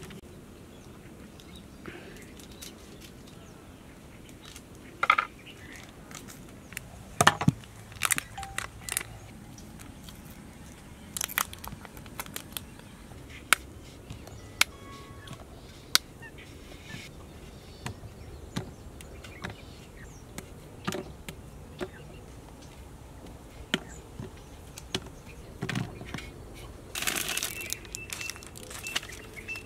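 Chocolate bars snapped into squares by hand over an aluminium pot: sharp snaps at irregular intervals as pieces break off and drop onto the heap. Near the end, a bar's paper-and-foil wrapper rustles as it is handled.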